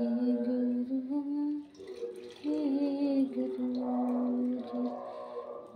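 A woman humming a slow tune, with long held notes that step up and down in pitch.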